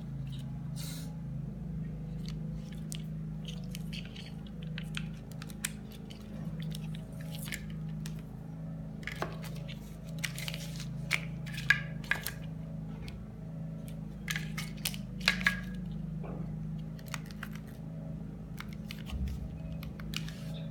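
Handling noise from unboxing a phone: scattered clicks, crinkles and rustles of packaging and the handset, loudest around the middle, over a steady low hum.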